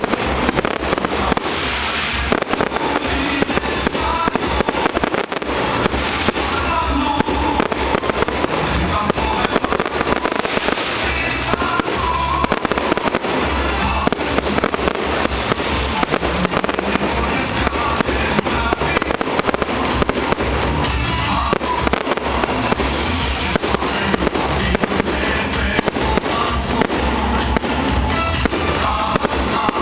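Festive fireworks salute: a continuous barrage of bangs and crackles from aerial shells, with music playing over it.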